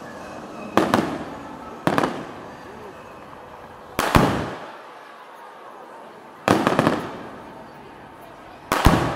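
Aerial fireworks bursting: five loud bangs in nine seconds, irregularly spaced, each dying away in an echo.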